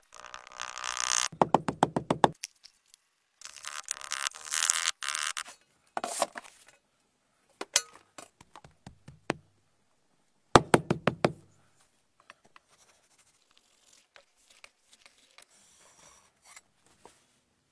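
Red casting sand being packed and rammed into a wooden moulding flask: several bursts of rustling and rapid knocking. In the last few seconds there is only faint scraping as the sand is struck off level with a metal bar.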